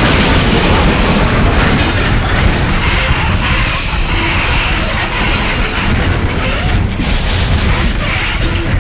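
Train crash sound effect: a loud, continuous rumble with high metallic squealing like wheels screeching on rails, which fades about six seconds in. A short crashing burst of noise follows about seven seconds in.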